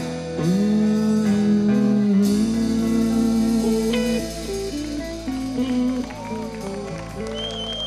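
Live rock band playing an instrumental passage at the end of a song: an electric guitar lead with bent, wavering notes over bass and drums, growing quieter toward the end.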